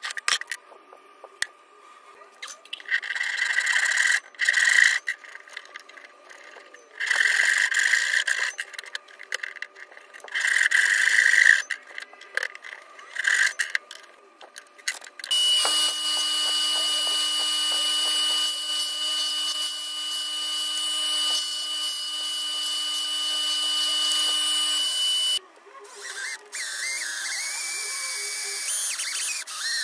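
Power tool work: three loud bursts of grinding or sanding noise, then an electric drill motor running steadily for about ten seconds and stopping suddenly, followed by quieter, uneven noise.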